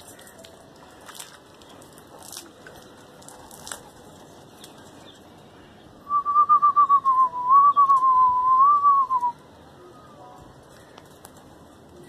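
A loud, warbling human whistle lasting about three seconds, starting about six seconds in, with a quick trill that wavers around one pitch and dips slightly at the end. Faint scattered clicks before it.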